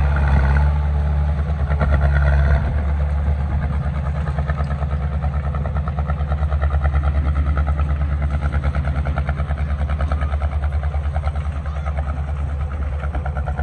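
Heavy construction-machine diesel engine running close by with a fast, even throb. It eases slightly about two and a half seconds in.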